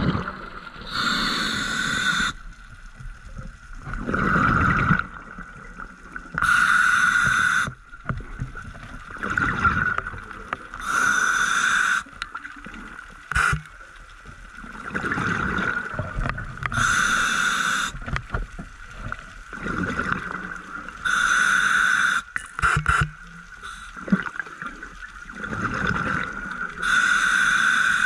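Scuba diver breathing through a regulator: a hiss of inhaled air about every five seconds, alternating with a rush of exhaled bubbles. There are a few sharp clicks in between.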